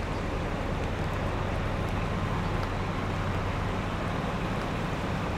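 Steady city street noise: traffic rumble under a constant low hum, with no single event standing out.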